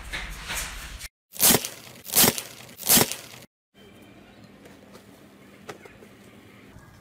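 Slime being handled, with wet crackling and tearing sounds. In the middle come three loud crackling bursts about three-quarters of a second apart, then quieter stretching of slime pulled from a tub, over a faint steady hum.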